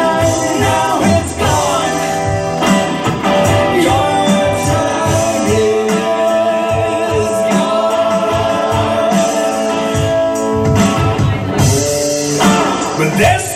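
A live band playing a song: a male singer on a microphone over electric guitar and a drum kit with a steady beat, recorded on a phone.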